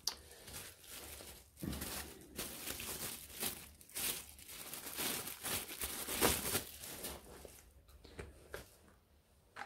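Thin clear plastic bag crinkling and rustling as a silicone mold is worked out of it by hand; the crinkling dies away over the last couple of seconds.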